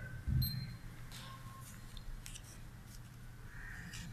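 A button is pressed on a Sokkia SET530R total station's keypad, giving a dull thump, and the instrument answers with one short high electronic key beep. A few faint clicks follow.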